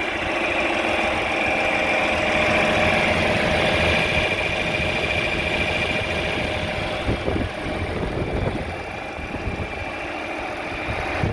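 1965 John Deere 4020's gasoline inline-six engine running steadily.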